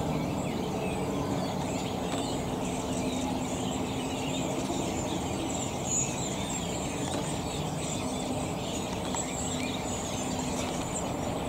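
A flock of redwings calling, many small high notes scattered over a steady low background hum, with one slightly louder note about six seconds in.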